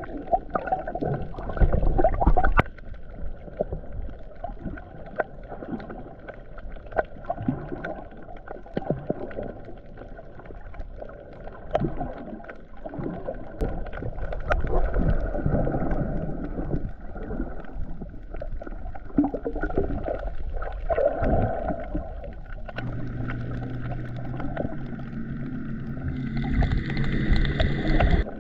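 Muffled underwater sound from a camera held just below the surface while snorkeling: irregular water sloshing and gurgling against the camera housing, with scattered clicks. About three-quarters of the way through, a steady droning hum with several held tones joins in and grows louder toward the end.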